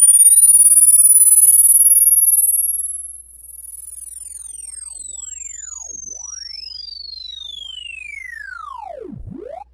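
A pure sine test tone from a signal generator sweeping steadily upward in pitch as a very high, thin whistle. Fainter tones glide up and down beneath it, and the sound cuts off suddenly at the end.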